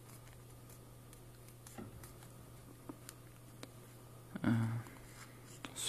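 Faint, sparse clicks and rustles of origami paper being handled and creased, over a steady low hum. A brief voice sound comes about four and a half seconds in.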